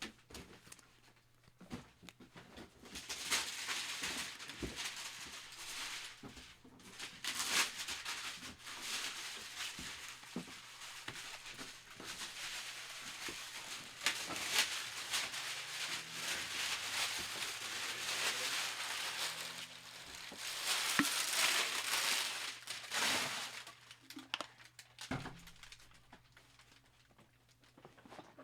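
Plastic wrapping crinkling and trading cards rustling as a pack is handled, in several bouts with small clicks and taps between them.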